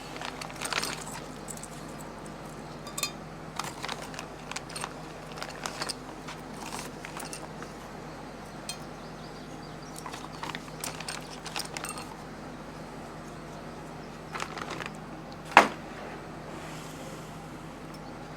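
Small metal parts clinking and clattering as they are handled, with a sharp metallic clack about fifteen and a half seconds in.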